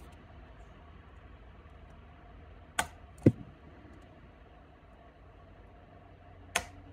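Spot welder firing through a handheld pen onto nickel strip pressed against copper bus bar on 18650 cells: three sharp snaps, two close together about three seconds in and one near the end, the second the loudest.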